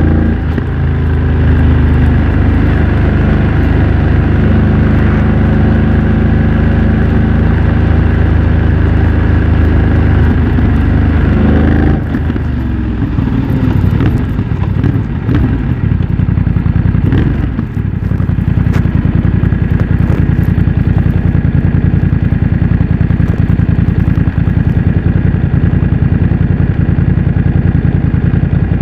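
BMW F900 XR's parallel-twin engine through a MIVV X-M1 aftermarket exhaust. It runs steadily under throttle for about twelve seconds, then drops off suddenly and wavers in pitch. For the last ten seconds or so it settles into a steady, pulsing low note like an idle.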